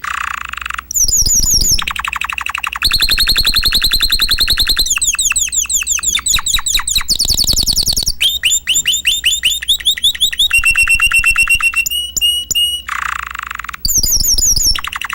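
Domestic canary singing a long, loud song made of rapid trills: each phrase is a run of quickly repeated notes, and the bird switches to a new pitch and note shape every second or two.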